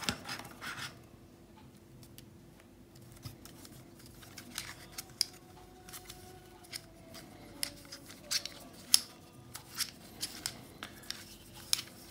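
Hard plastic pieces of a Lim Discrete Pyraminx twisty puzzle clicking and clacking as its pieces are turned by hand. The clicks are sharp and irregular, with a cluster at the start and a scattered run of them from about three seconds in.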